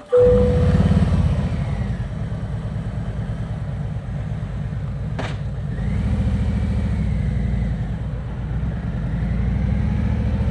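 Harley-Davidson Road King Special's V-twin engine running with its rapid, even low pulsing, with a single sharp click about five seconds in.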